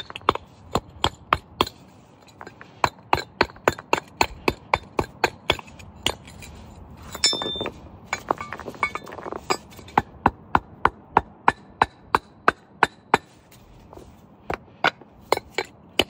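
Hammer striking the metal bracket of a replacement engine mount in steady runs of about three blows a second with short pauses, bending a tab back in so the mount latches firmly into its frame. A brief metallic clatter with a ringing clink comes about seven seconds in.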